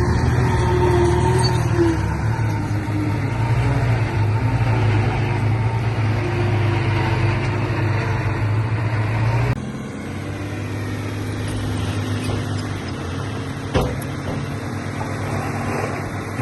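Heavy diesel machinery engine running with a steady, deep drone. About two-thirds of the way through the sound changes abruptly to a quieter engine, and a single sharp knock comes a few seconds later.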